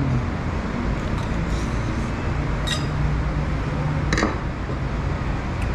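Steady low background rumble with two sharp clinks of tableware about a second and a half apart, the second ringing briefly.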